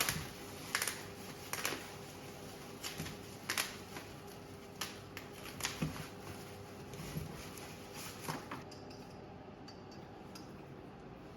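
Irregular clicks, taps and short rustles of packaging and parts being handled while a new electric scooter is unpacked, dying away near the end.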